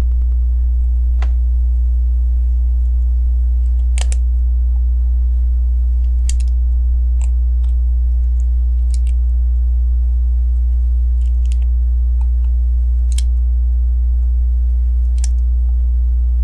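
Small LEGO plastic pieces clicking and tapping as they are pressed into place, about ten sharp clicks spread unevenly through. Under them runs a loud, steady low hum.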